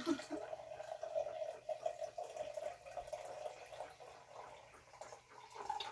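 Liquid pouring in a thin stream from one glass beaker into another, a steady trickle and splash that weakens about halfway through.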